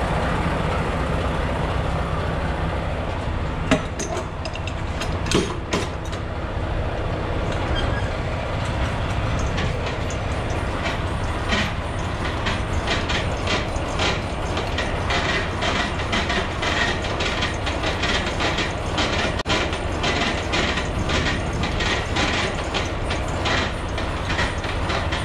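A semi truck's diesel engine idling steadily. From around eleven seconds in there is a run of short clicks or crunches, about two a second.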